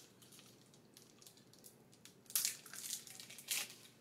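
Foil wrapper of a 2008 Upper Deck Rookie Threads football card pack crinkling in the hands, in three short sharp bursts in the second half.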